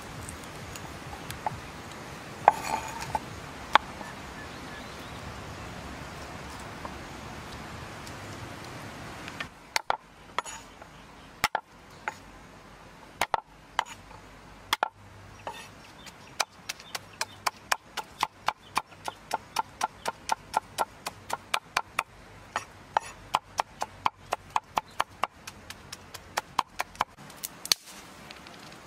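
Knife chopping garlic on a round wooden chopping board: a few scattered cuts about ten seconds in, then rapid even chops at about three to four a second until near the end. Before the chopping there is a steady hiss.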